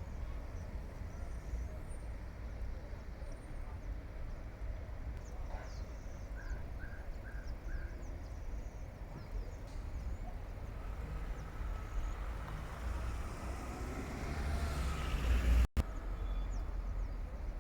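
Low wind rumble on the microphone throughout, with a quick run of four bird chirps about seven seconds in. Aircraft engine noise builds steadily over the last few seconds, then cuts off abruptly at an edit.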